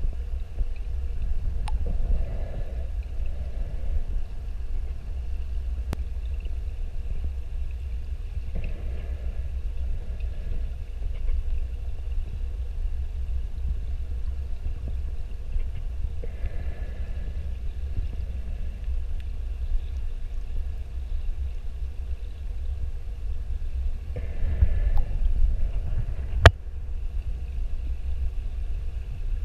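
Underwater sound picked up by a submerged camera: a steady low rumble, with a rush of scuba exhaust bubbles from a diver's breathing about every seven seconds, and a single sharp click near the end.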